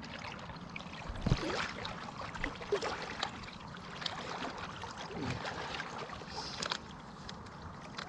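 A person swimming through river water: quiet, irregular splashing and lapping.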